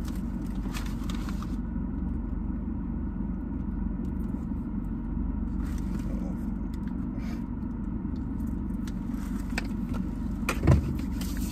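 Steady low rumble of a car idling, heard from inside the cabin, with a few faint clicks and one short thump near the end.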